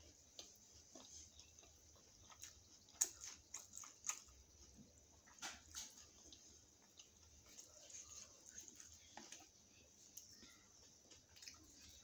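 Faint mouth sounds of chewing a steamed paneer momo: soft, irregular wet clicks and smacks.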